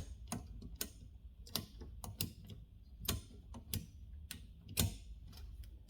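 Herald 7 typewriter's line-spacing lever and platen ratchet being worked: a series of sharp mechanical clicks, roughly two a second and unevenly spaced, as the roller steps round.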